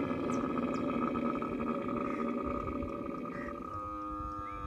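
Dromedary camel giving one long, rough, drawn-out call that turns into a smoother tone and fades near the end.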